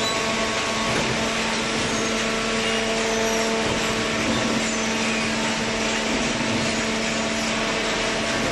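Hydraulic power unit of a single-cylinder vertical scrap baler running, a steady motor hum with a pump whine over broad mechanical noise.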